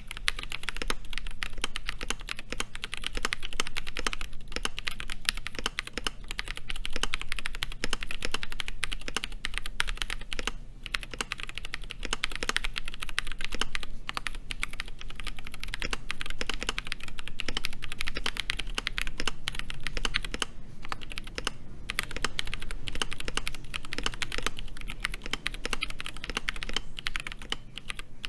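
Typing on a KBD67 Lite mechanical keyboard fitted with Durock POM Sunflower tactile switches: a fast, steady run of keystrokes, with brief pauses about ten and twenty-one seconds in.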